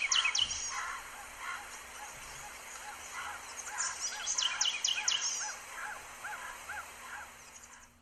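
Birds calling in a field recording: a run of short arched call notes, about two a second, through the middle, over high chirps and a steady hiss. The recording cuts off abruptly at the end.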